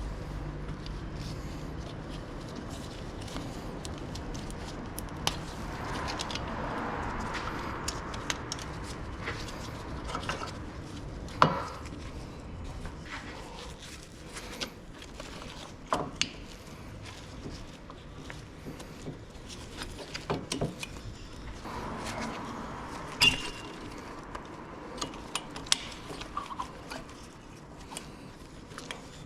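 Metal tools and brake parts clinking and knocking at irregular intervals during front brake pad and disc rotor removal on a car, with a few sharper knocks. The loudest knock comes about a third of the way in. Twice there is a soft rushing noise.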